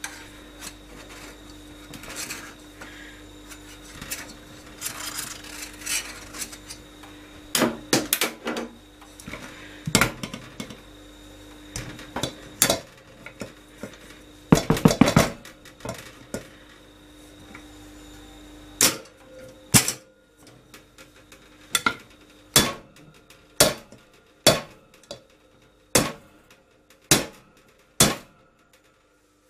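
Metal cake tin scraped around its edge with a spatula, then turned upside down on a ceramic plate and banged down on it again and again to free a cake stuck to its base. In the second half the sharp knocks come about one a second.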